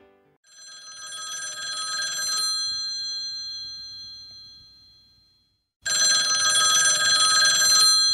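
Telephone bell ringing twice, each ring lasting about two seconds. The first ring swells in and fades away; the second starts sharply about six seconds in.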